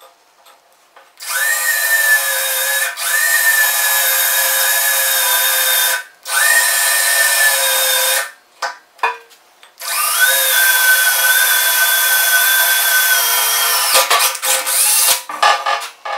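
Cordless drill with a small bit boring a pilot hole into a steel tractor loader bucket. The motor runs in four long spells, its whine rising quickly at each start and then holding steady, with a few light clicks near the end.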